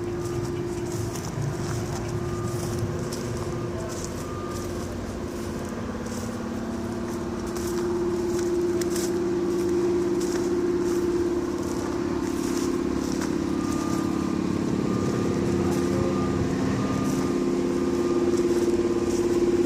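A motor vehicle's engine running nearby: a steady hum that grows louder about halfway through. Footsteps crunch on the track's gravel ballast about twice a second.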